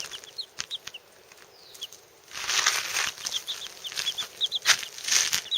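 Young chicks peeping: many short, high, falling peeps. A few bursts of rustling come through, the longest a little past halfway.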